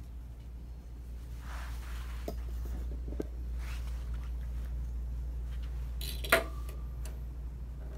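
Steady low hum with faint rustling of handling, and about six seconds in a single sharp metallic clink with a short ring.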